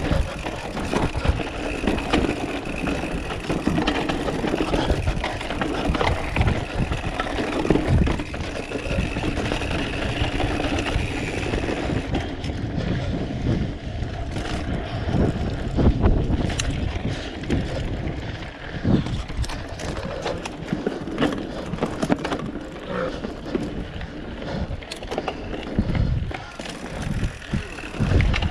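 Mountain bike ridden over a rough dirt trail: continuous tyre and ride noise, with many short knocks and rattles as the bike hits bumps.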